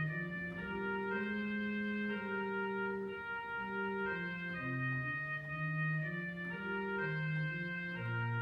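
Two-manual organ played in slow held chords, the harmony changing every second or so over a moving bass line.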